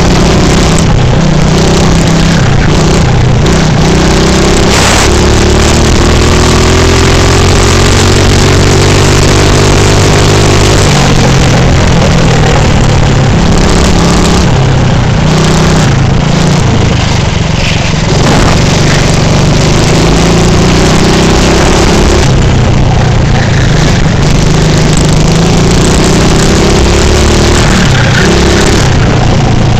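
Racing kart engine running hard on a lap, picked up loud from on board. Its pitch climbs steadily through a long acceleration in the first third, then rises and falls as the kart accelerates out of corners and lifts off into them.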